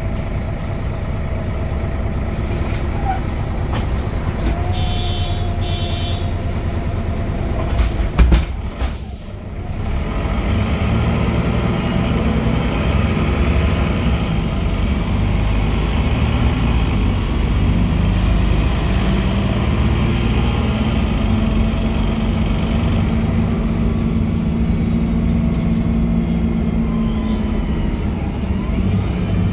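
Cabin noise of a MAN NG313 articulated city bus running, its MAN D2866 diesel and Voith D864.3E four-speed automatic heard from inside the passenger saloon. A brief loud burst about eight seconds in, then a steady, stronger engine hum with a faint high whine that rises and later falls.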